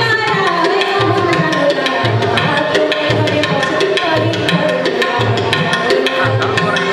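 Recorded Bengali folk song playing: hand drums keep a steady beat, with deep strokes about twice a second and quick light taps between, under a melody line.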